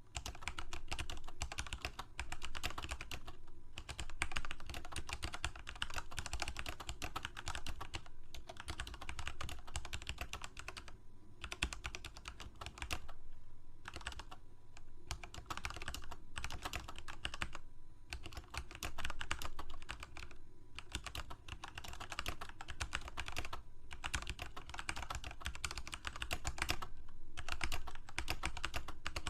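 Computer keyboard being typed on continuously, fast runs of key clicks broken by brief pauses every few seconds.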